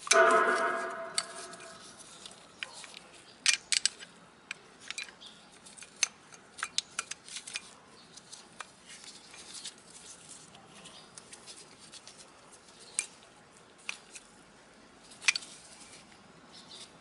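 A metal tool or part strikes something and rings with a clear metallic clang for a couple of seconds. It is followed by scattered light clicks and taps of hand tools and small metal parts being handled, as in brake caliper and pad work.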